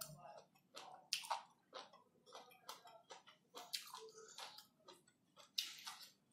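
A person chewing a mouthful of spicy instant noodles close to the microphone: irregular wet clicks and lip smacks, a few to a second.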